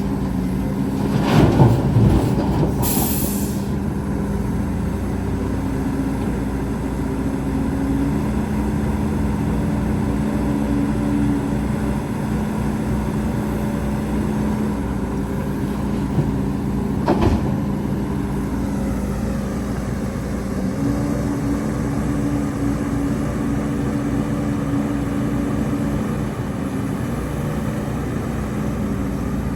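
Heavy diesel earthmoving machinery running steadily, with a clank about a second and a half in and another about 17 seconds in, and a short hiss near 3 seconds.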